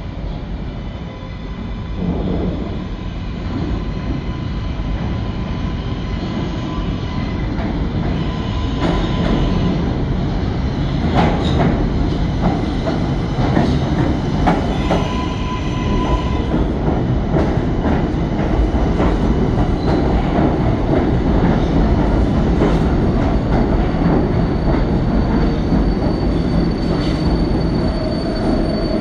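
An R142A subway train pulling into an underground station. Its wheels rumble on the rail, louder as it comes in, with a run of clicks over the rail joints about halfway through and a thin high squeal from the wheels as it slows along the platform.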